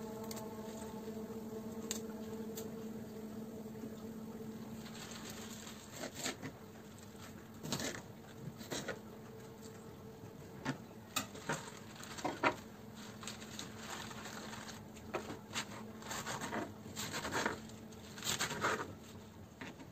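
A knife cutting Malabar spinach stems and leaves on a plastic cutting board: irregular crisp taps and crunches in short clusters from about six seconds in. A faint steady hum is heard in the first few seconds.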